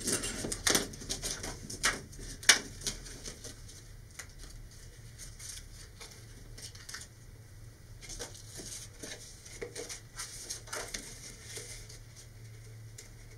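Handling noises: a thin vacuum-formed plastic wrap clicks and crackles as it is flexed and fitted around a cardboard rocket body tube, along with taps of a steel ruler and tools on a cutting mat. The sharpest clicks cluster in the first few seconds, with lighter scattered ones after.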